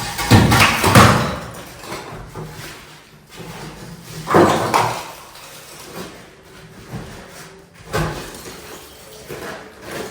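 Heavy knocks and clatter from demolition work: a loud double impact right at the start, another about four seconds in, and a smaller one about eight seconds in.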